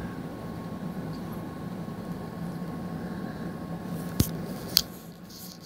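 Two sharp taps about half a second apart, a little after four seconds in, over a steady low hum.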